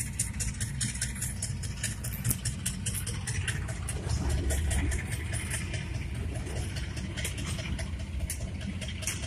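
A car's engine and road noise heard from inside the cabin as it drives slowly: a steady low rumble, a little louder about halfway through, with a fast, light ticking over it.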